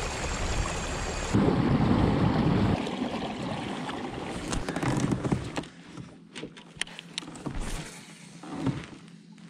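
Water rushing along the hull of a pedal-drive fishing kayak as it moves, with a louder low rumble about a second and a half in. The rush fades in the second half, where a few light clicks and knocks come through.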